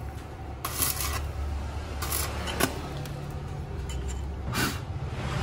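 Electric arc welder laying short welds on a rear bump-stopper bracket: several brief bursts of crackling and sizzling from the arc, each about half a second, over a low steady hum.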